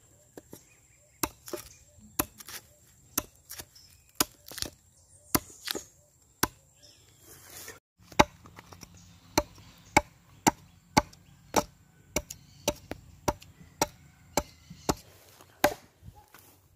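Iron-bladed hand tools chopping into a wooden log to hollow out the bowl of a wooden mortar: sharp chops about two a second. There is a brief break about halfway, and the chops are steadier after it.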